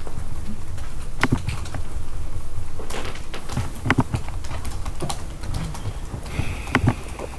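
A few scattered clicks and taps from a Chromebook's keys and trackpad, over a low rumble of room noise.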